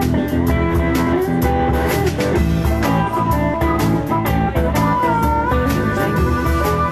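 Live blues band playing: guitar and drum kit, with a harmonica playing notes that bend in pitch.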